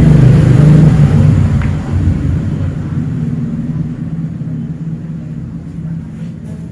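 A motor vehicle's engine running, with a low steady hum. It is loudest for the first two seconds, then fades and keeps running more quietly.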